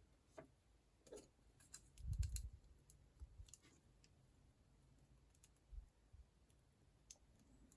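Faint, scattered clicks of plastic building bricks being handled and pressed together, with a soft low bump about two seconds in.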